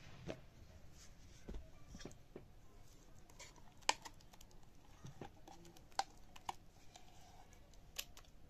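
A spatula scraping wet ground dal paste out of a mixer-grinder jar into a steel bowl: scattered light taps and clicks of the spatula and jar against the metal, with a few sharper knocks about four, six and eight seconds in.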